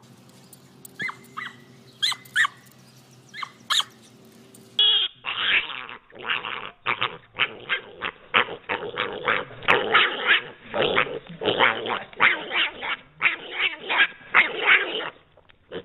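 A few short high-pitched calls in the first seconds, then a dog barking in a rapid, almost unbroken run of loud barks.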